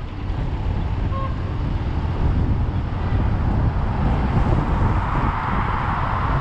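City road traffic: a steady low rumble of vehicles. A louder hiss builds up over the last couple of seconds as a vehicle draws near.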